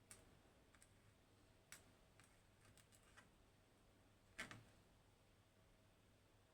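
Faint, scattered small clicks of lock parts and tools being handled while the lock is taken apart, with one louder click about four and a half seconds in.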